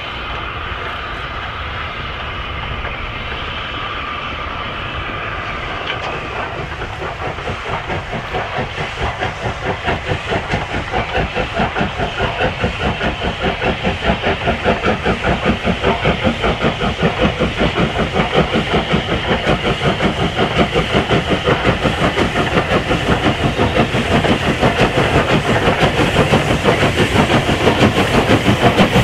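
Southern Railway Schools class three-cylinder 4-4-0 steam locomotive working a passenger train. Its exhaust beats come in a quick, even rhythm that grows steadily louder from about six seconds in as it approaches.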